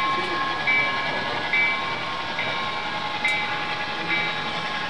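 Electronic bell sound on a model railroad layout dinging evenly, six strikes a little under a second apart, over steady background noise.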